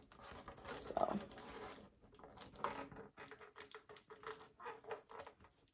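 Light, irregular rustling with small clicks and taps as hands work craft materials, a balloon stick and balloon fitted to a cup holder.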